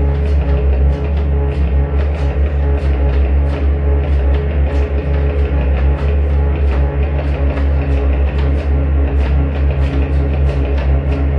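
Live rock band playing an instrumental passage: drum kit keeping a steady beat over a heavy, sustained low bass and guitar.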